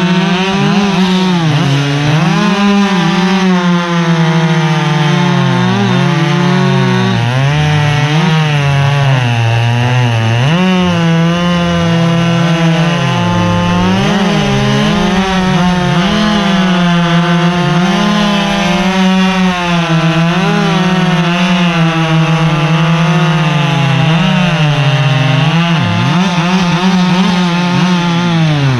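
Gas chainsaw running at high revs while cutting wood, its engine pitch dipping and picking up again and again as the chain loads up in the cut and frees.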